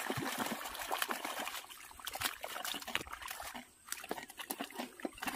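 Boots squelching and splashing through the waterlogged mud of a flooded paddy field: a jumble of wet sucks, slaps and sloshes.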